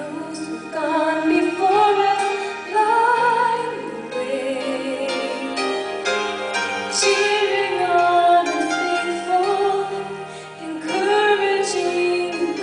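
A woman singing a slow Christian song into a handheld microphone, her voice with a light vibrato, over a soft instrumental accompaniment.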